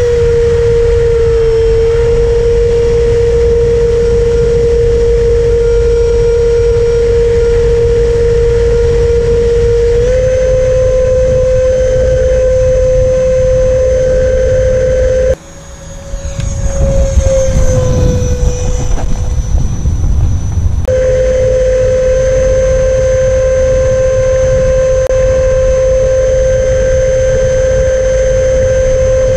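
64mm electric ducted fan on a 4S battery whining steadily, heard from a camera on the model jet with heavy wind rush over the airframe; the whine steps slightly higher about a third of the way in. A little past halfway the whine cuts out abruptly, then a loud rushing passage follows with the tone sliding down, and after a few seconds the steady whine returns.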